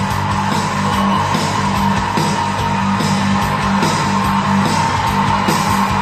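Music played through a pair of bookshelf speakers driven by an Aiyima A07 MAX amplifier (TPA3255 chip), with a strong bass line and a steady beat.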